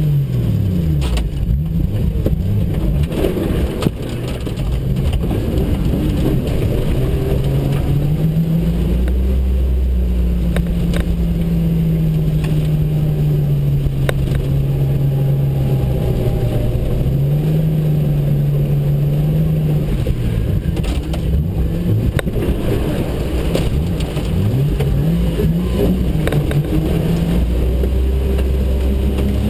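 Jeep Cherokee XJ engine revving up and down, its pitch rising and falling slowly over several seconds at a time, with a low steady rumble at the start and again near the end.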